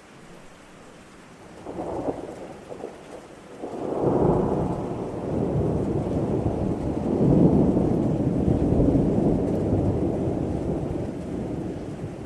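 Thunderstorm: steady rain with a thunderclap, a few sharp cracks about two seconds in, then a long rolling rumble from about four seconds in that swells and slowly fades.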